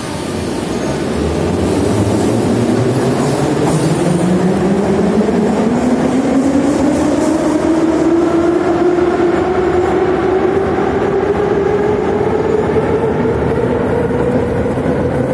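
81-717/714 "Nomernoy" metro train pulling away from the platform: its DC traction motors whine, rising steadily in pitch as the train gathers speed, quickly at first and then levelling off, over the noise of its wheels on the rails.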